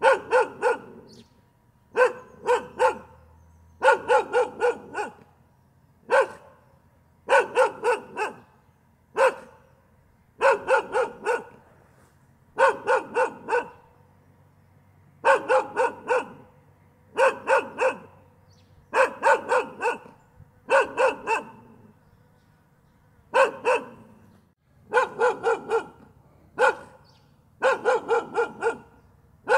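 A dog barking on and off, in quick runs of two to four barks with short pauses between them, every second or two.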